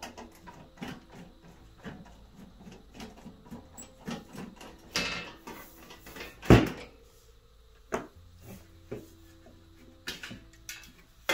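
Sheet-metal back panel of an espresso machine being worked loose and taken off: a run of small clicks and scrapes at the top screws, a scrape, then one loud knock about six and a half seconds in as the panel comes away, followed by a few scattered clicks and knocks.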